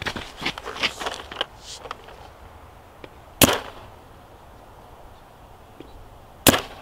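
Dye M3+ electronic paintball marker firing two single shots about three seconds apart, each a sharp pop, the first about three and a half seconds in; the shots are fired over a chronograph to check velocity. A few light clicks come in the first two seconds.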